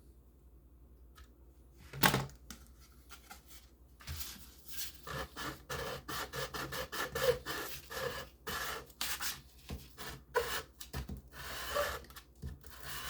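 Hobby knife blade scraping and shaving the edge of a styrene plastic sheet, used like a plane: a long run of short, quick scraping strokes starting about four seconds in, after a single sharp knock about two seconds in.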